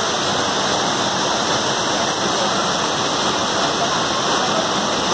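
Torrent of muddy floodwater rushing down a road in a cloudburst, a loud, steady, unbroken rush mixed with heavy rain.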